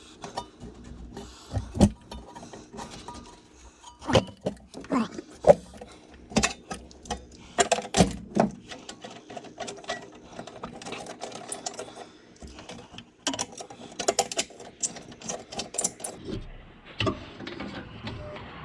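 Irregular clinks, clicks and knocks of metal parts and hand tools being handled and fitted during truck reassembly.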